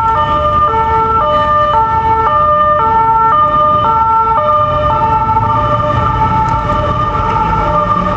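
Two-tone emergency vehicle siren of the French hi-lo kind, stepping between a high and a low note about twice a second, over a low rumble of traffic. The siren grows fainter after about four seconds.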